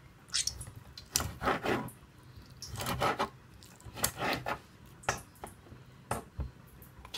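Serrated bread knife sawing through boiled meat on a wooden chopping board: about eight short, irregular sawing strokes and knocks on the wood.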